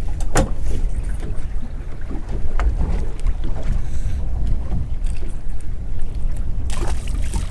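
Wind buffeting the microphone on a small open boat at sea, a steady low rumble, with a few scattered knocks and clicks and a brief scraping rustle near the end.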